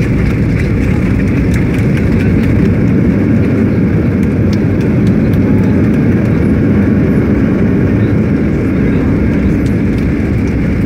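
Airliner landing in a strong wind: a steady, loud rumble of jet engines and rushing air, heaviest in the low end, with a few faint clicks.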